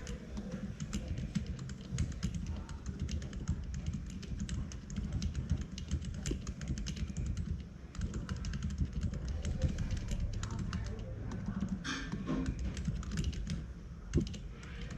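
Continuous fast typing on a UT47.2 40% mechanical keyboard with Gazzew Bobagum silent linear switches lubed with Krytox 205g0 and KAT Alpha keycaps: a dense run of soft, deep keystrokes, with one louder stroke near the end.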